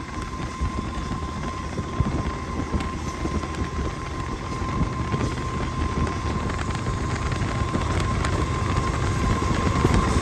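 A train rolling by: a steady low rumble with scattered clicks of wheels on the rails, slowly getting louder toward the end, with wind noise on the microphone.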